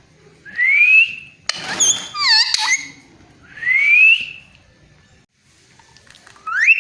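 Pet parrot whistling: two clean rising whistles about three seconds apart, with a burst of harsh, chattering calls between them and another call starting near the end.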